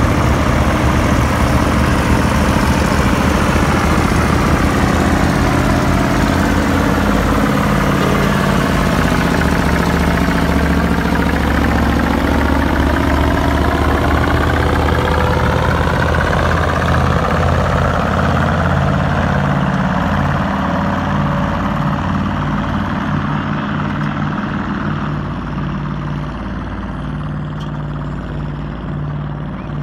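Heavy MAN KAT all-wheel-drive military trucks' diesel engines labouring under load as they tow a 30-ton tanker rig through deep sand. The sound swells and sweeps as the convoy passes close, then fades as it pulls away.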